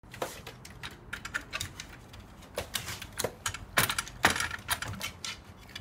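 Shiba Inu pawing and scratching at the wooden kennel door, its claws clattering on the wood and the door rattling in a run of irregular taps and scrapes, loudest about four seconds in.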